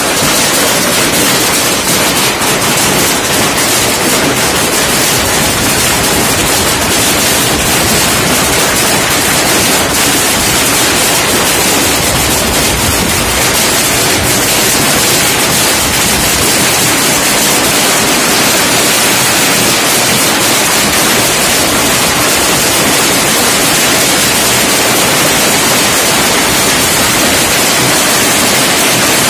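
Heavy hail pelting down on the ground and hard surfaces: a loud, steady hiss with many small clicks of single stones through it.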